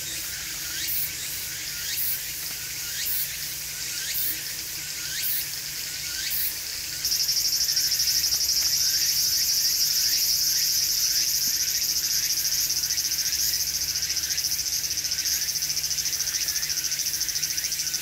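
Insects calling: a high-pitched pulse about once a second, then from about seven seconds in a louder, steady high buzz.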